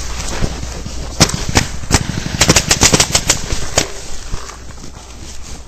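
Paintball markers firing: a few single shots about a third of a second apart, then a fast burst of about nine shots in roughly a second around the middle, and one last shot.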